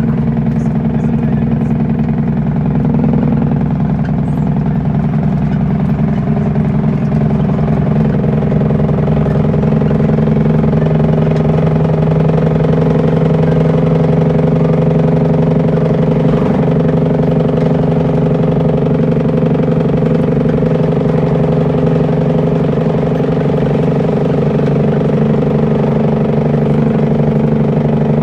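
Cummins N14 diesel engine of an International truck running steadily under way, heard from inside the cab.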